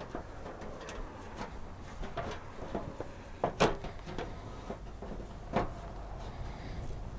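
A plastic headlamp assembly being worked free of a 2002–2005 Dodge Ram's front end: scattered plastic knocks, scrapes and rattles. The loudest are a pair of knocks about three and a half seconds in and another a couple of seconds later.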